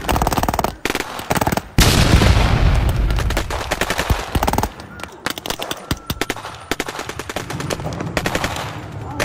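Military rifles and a bipod-mounted machine gun firing rapid bursts and overlapping shots. The loudest, deepest stretch starts about two seconds in and lasts nearly three seconds.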